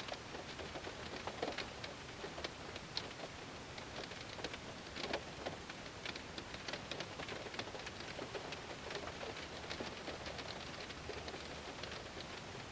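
Heavy rain drumming on a car's window and body: a steady hiss of rain with many separate drops striking the glass, a few louder hits among them.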